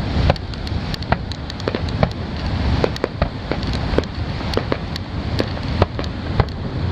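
Aerial fireworks: many sharp, irregular crackling pops, with a low boom near the start, over a steady low rumble.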